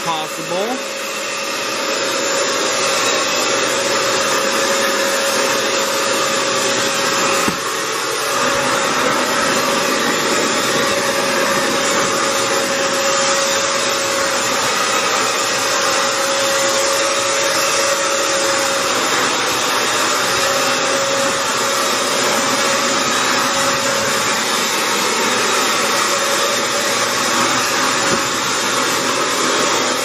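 Hoover FloorMate Edge wet floor cleaner running steadily as it is pushed over wet tile: its suction motor gives a steady rushing whine with one constant tone, dipping briefly about seven seconds in.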